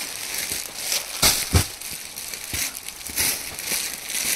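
Clear plastic packaging crinkling and rustling in irregular bursts as a folded cloth suit is pulled out of its bag and handled, with the loudest crackles about a second and a half in.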